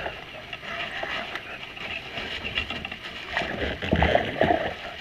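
Water sloshing and splashing against a kayak hull, with a cluster of louder splashes and knocks about three to four and a half seconds in.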